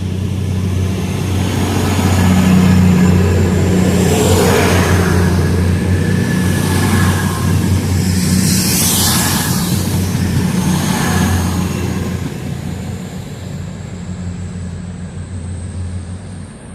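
Class 222 Meridian diesel multiple unit pulling out of the station: its diesel engines drone steadily, with a thin high whine that slowly rises in pitch and a few rushes of wheel noise as the cars go by. The sound fades over the last few seconds as the train draws away.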